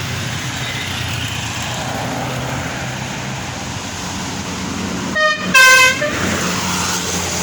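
Tour bus engine running with a steady low drone, and about five seconds in its telolet air horn sounds two short notes, the second lower and louder than the first.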